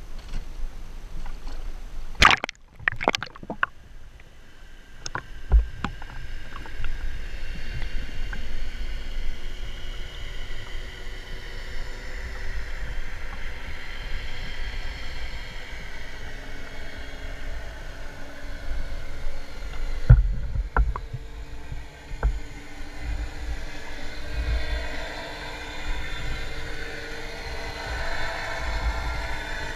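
Muffled underwater sound from a camera held beneath a lake surface: a steady low water rumble and sloshing, with a cluster of sharp splashes and knocks about two to three seconds in and a few more knocks around twenty seconds in.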